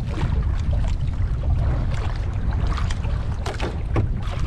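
Wind buffeting the microphone as a steady low rumble over open sea, with water lapping and a few light clicks near the end.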